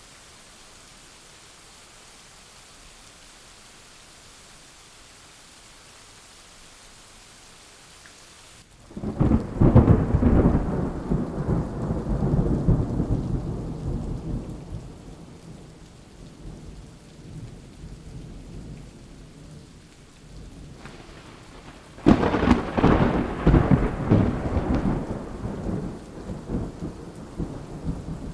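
Steady rain hiss, then a loud thunderclap about a third of the way in that rolls and rumbles for several seconds before fading. A second clap of thunder breaks about two-thirds of the way in and rumbles on to the end.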